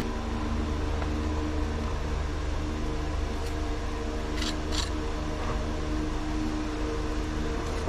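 Steady machine hum, an even drone of several tones from a running motor, with two brief scrapes of a steel pointing trowel on mortar and block about four and a half seconds in.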